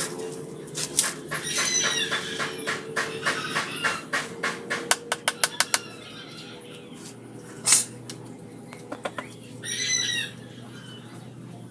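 A run of sharp knocks and clicks, quickening to about five a second near the middle, with one louder knock later, over a steady low hum. Short chirping calls come near the start and near the end.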